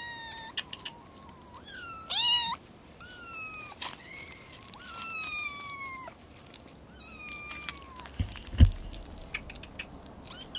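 Kitten meowing again and again: about six high calls that fall in pitch, the loudest around two seconds in. A single low thump follows near the end.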